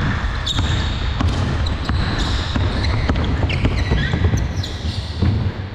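Basketball bouncing repeatedly on a court during a pickup game, with players' movement around it, heard from a GoPro worn on a player's head.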